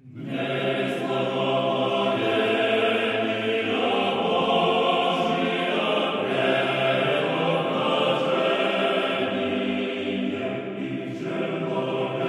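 Church choir singing a slow chant in sustained, many-voiced chords that change every few seconds.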